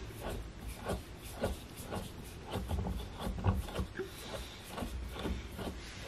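Scattered light knocks and rubbing from parts of a new couch being handled during assembly, a few irregular taps each second.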